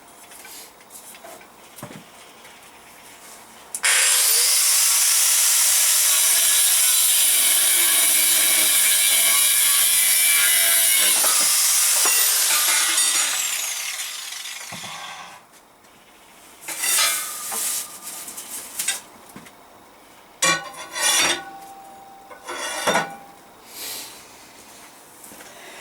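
A power cutting tool slicing through a 10 mm steel bar. It starts suddenly at full level, runs steadily for about eight seconds, then winds down with a falling whine. After it come several short metallic clanks and rattles.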